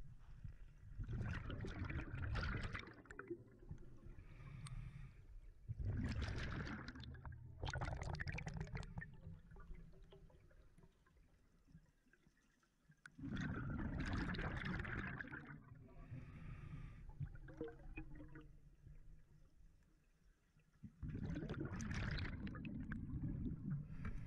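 Scuba diver's regulator breathing underwater: exhaled bubbles gurgle out in four bursts several seconds apart, with quieter stretches between breaths.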